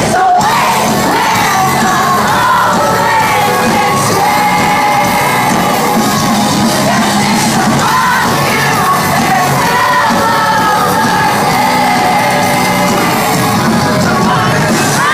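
Live post-hardcore band playing loud through the venue's sound system, with sung vocals, heard from within the concert audience along with shouting from the crowd.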